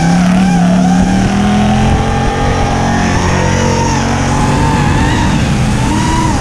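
Racing quadcopter's Cobra 2205 motors and props whining, the pitch wavering up and down with throttle, over the engines of stock cars running on the track. A car's low engine note is loudest in the first two seconds and rises slightly; the drone whine flattens through the middle and wavers again near the end.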